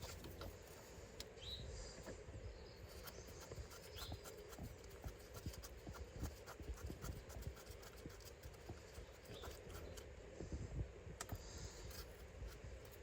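Faint, irregular light clicks and scrapes of hand and tool work at a car's front wheel hub, over a low steady hum.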